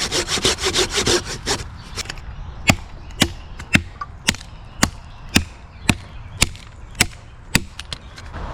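A hand saw cutting wood in quick strokes for about a second and a half, then an axe chopping into a log, about ten sharp blows at a steady pace of roughly two a second, as a notch is cut.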